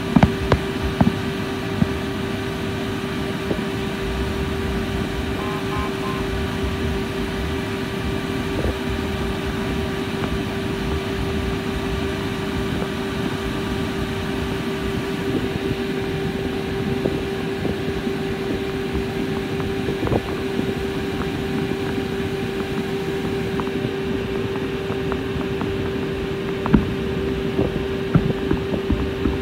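Steady drone of a boat's engine, a constant hum over a low rumble. A few sharp fireworks bangs come at the start and again near the end.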